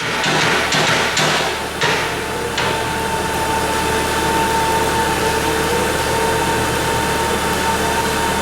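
A steady mechanical hiss with a steady whine running through it, loud throughout, and a handful of sharp knocks in the first three seconds.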